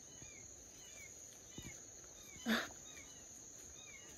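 Forest insects: a steady high-pitched drone with short chirps repeating about twice a second over it. One brief louder sound about two and a half seconds in.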